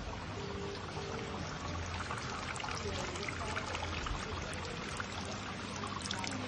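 Water pouring and trickling from ornamental garden fountains: a stream falling from a wooden chute onto a water wheel, then water spilling over the bowls of a tiered fountain.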